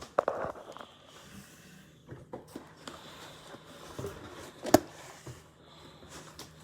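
Scattered light knocks and clicks of things being handled, with one sharp click about three-quarters of the way through, over a faint steady hum.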